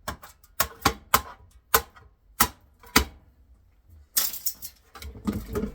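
Sharp, irregular clicks and clacks of hard metal parts being handled during a hand teardown of a heatsink assembly, about seven knocks, then a brief scraping rattle about four seconds in.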